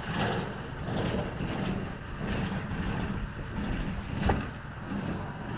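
John Deere 5055E tractor's diesel engine running steadily at a low, even pitch, with a single short knock about four seconds in.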